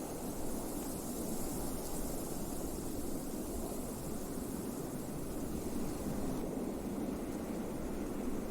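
Blizzard wind blowing steadily: an even, deep rush of wind with a thin hiss above it and no gusts or breaks.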